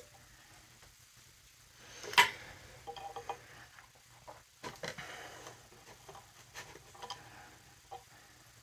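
Small clicks and taps of fly-tying tools being handled at the vise, with one sharper, louder click about two seconds in.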